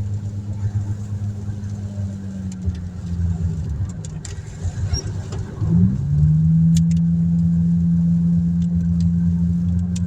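Car engine heard from inside the cabin while driving, a steady low hum that eases off for a few seconds, then picks up about six seconds in and holds louder and higher as the car accelerates. Scattered sharp ticks sound over it.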